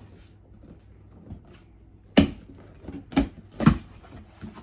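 A cardboard shipping box being cut open with a blade: three short, sharp strokes in the second half, the first the loudest.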